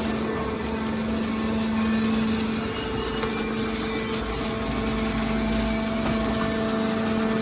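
Hydraulic baler's motor and pump running with a steady hum, a deeper rumble joining for a couple of seconds past the middle.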